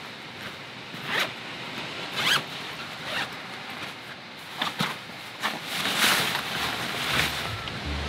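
A zipper being pulled in about eight short, uneven strokes over a steady background hiss.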